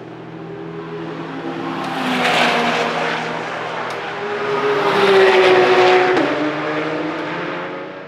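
BMW Z4 GT3's 4.4-litre V8 race engine revving at low speed as the car pulls out of a pit box. It swells and falls in pitch twice, loudest about two seconds in and again around five to six seconds in, then eases off near the end.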